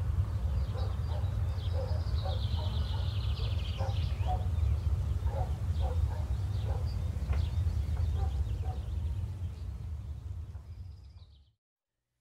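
Outdoor ambience: a steady low rumble with birds calling over it, including a high trilling call about two seconds in. The ambience fades out near the end.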